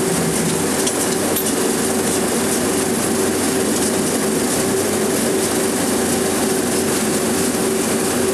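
Film projector running in the booth: a steady mechanical clatter with a constant hum underneath.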